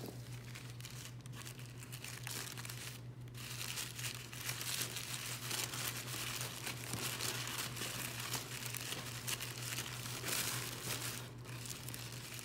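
Packaging crinkling and rustling as it is handled and pulled apart by hand while succulent cuttings are unwrapped, a dense run of small irregular crackles that grows busier after a few seconds, over a steady low hum.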